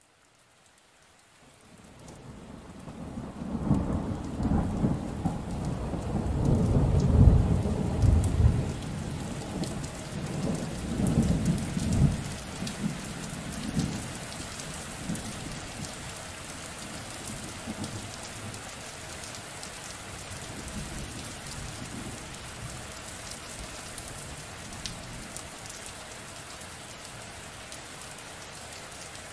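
Rain fades in from silence, then a long roll of thunder builds, peaks about seven seconds in and dies away by about fourteen seconds, leaving steady rain falling.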